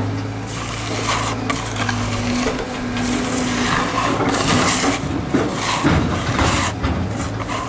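Rough scraping and rasping on fresh concrete, with the steady hum of a small engine that fades out about two and a half seconds in.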